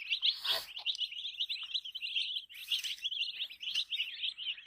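A brood of baby chicks peeping nonstop, many rapid high-pitched cheeps overlapping. There are two brief rustles, one about half a second in and one just past the middle.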